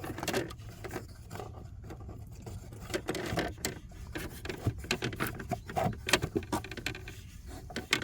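New cabin air filter being handled and slid into its housing behind a Toyota Tacoma's glovebox: scattered plastic clicks and taps with rustling, scraping rubs from the filter frame and pleats.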